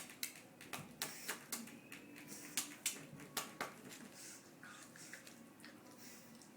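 Pug puppy licking a pane of glass: faint, irregular wet clicks and smacks of the tongue, several a second at first, then fewer.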